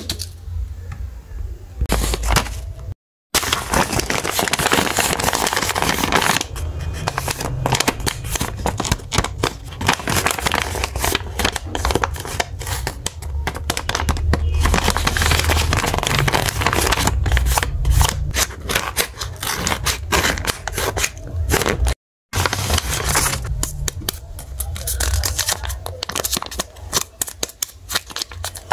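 Paper and plastic wrapping crinkling and rustling under the hands as paper blind bags are handled and opened close to the microphone, a dense run of crackles broken by two brief silences.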